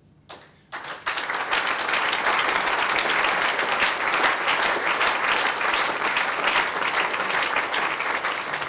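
Audience applauding: a few scattered claps, then full applause from about a second in, holding steady and dying away near the end.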